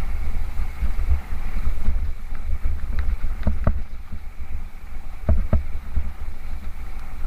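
Wind buffeting the microphone as a low, fluttering rumble while riding a mountain bike, with a few sharp knocks from the bike jolting over bumps around the middle.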